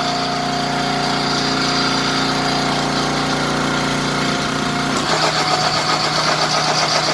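The log splitter's small no-name overhead-valve gasoline engine running steadily with the throttle up. A steady high tone sits over the engine and stops about five seconds in, after which the engine note turns rougher.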